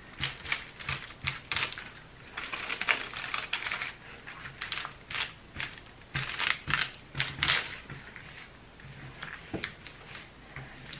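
Clear plastic cover film on a diamond-painting canvas crinkling and crackling under the hands as they smooth it flat over the sticky glue layer: a rapid, irregular run of small crackles.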